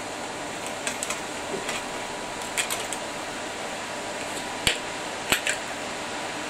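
Workshop fans running with a steady whirring hiss, with a handful of sharp clicks and knocks from handling parts, the loudest two near the end.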